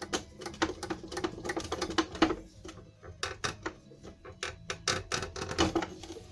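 Mercedes OM 603 diesel injector with a freshly fitted nozzle being pumped on a hand-lever pop tester: quick runs of sharp ticking as the injector chatters and sprays, several clicks a second. The spray is judged ideal, with opening pressure around 110–115 bar.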